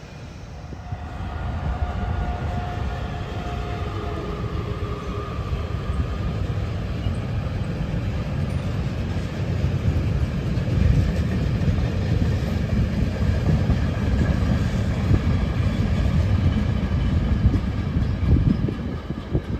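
A train passing on the line: a heavy rumble of wheels on track that grows louder and stays strong through the second half, with small knocks in it. A whine of a few steady tones that drift slightly downward is heard during the first few seconds.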